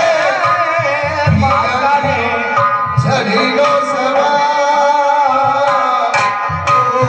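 Live Marwari folk music: a sung or played melody that glides in pitch, over a hand drum beating a steady rhythm.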